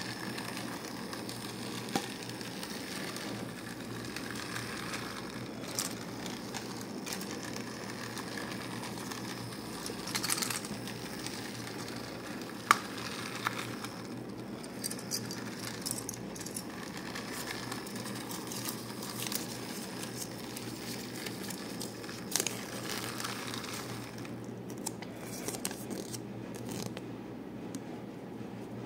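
Hands breaking open a chocolate surprise egg and its plastic toy capsule and handling a paper instruction sheet: scattered crinkles and rustles with a few sharp clicks.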